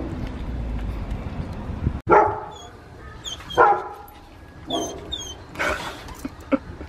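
Dog giving four short, high yelps and whines, the first two the loudest.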